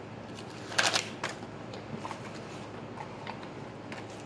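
Paper rustling and crinkling as a strip of paper is handled. There is one loud crackle a little under a second in, a smaller one just after, then faint ticks.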